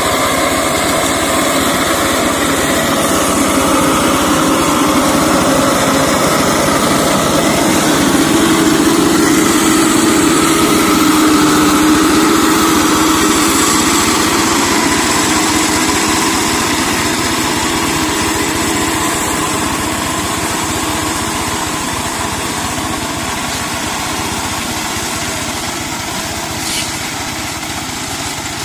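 Single-cylinder diesel engine of a two-wheel hand tractor converted into a mower, running steadily under load as it cuts through undergrowth. It grows a little louder toward the middle, then eases off slightly.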